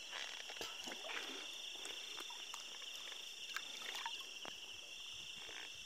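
Night insects trilling in a steady, continuous high-pitched chorus, with a few faint knocks.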